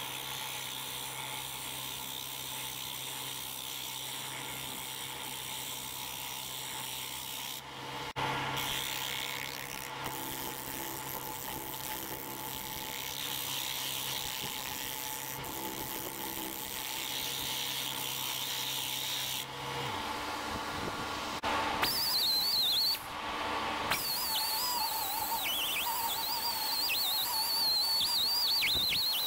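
Wood lathe running with a steady hum while a hand-held gouge scrapes and cuts a spinning spalted wood blank. The hum stops after about twenty seconds, and near the end a high, wavering whistle-like tone comes in.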